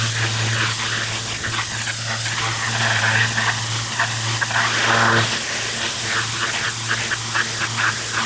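Pressure washer lance spraying water onto stone patio slabs: a steady hissing spray with a grainy spatter, over a steady low machine hum that drops away about five seconds in.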